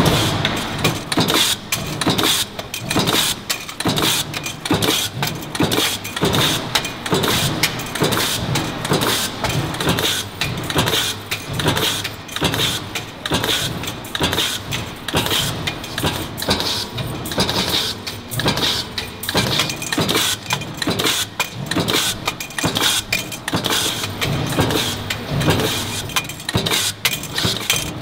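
Metal-stamping press line running, steel strip feeding in as oil filter end plates are punched out: a continuous fast, uneven metallic clatter of strikes and clinking parts.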